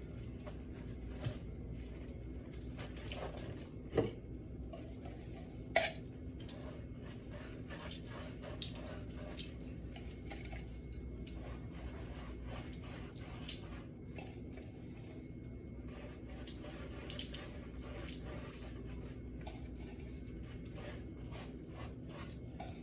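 Light clinks and taps of kitchen utensils on dishes, scattered irregularly every second or two, over a steady low hum.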